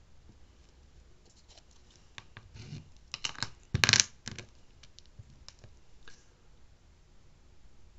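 Plastic scraper dragged across a metal nail-stamping plate in a quick run of short scratchy strokes, loudest about four seconds in, scraping nail polish over and off the engraved design.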